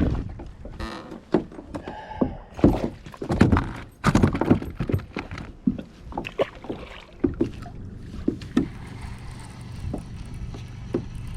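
Knocks and clatter of fishing gear being handled in a kayak, then from about seven seconds in a steadier whir of a fishing reel being cranked, with a few clicks over it.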